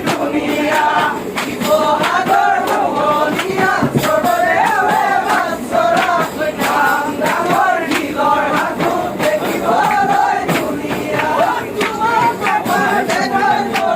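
A dense crowd of many voices talking and calling out at once, loud and overlapping, with frequent sharp clicks running through it.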